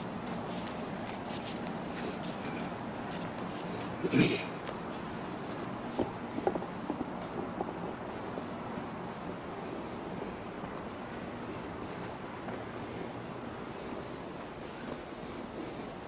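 Insects chirring steadily in the woods, a continuous high-pitched hum, with one brief louder sound about four seconds in and a few soft clicks a couple of seconds later.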